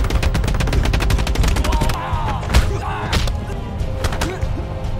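A rapid, unbroken flurry of punch impacts, many hits a second like a drumroll: film fight sound effects of Wing Chun chain punches landing on opponents. Film music runs underneath.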